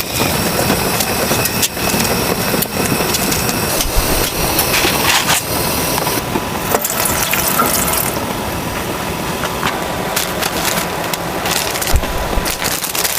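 Heavy rain falling: a dense, steady hiss with many sharp taps of drops.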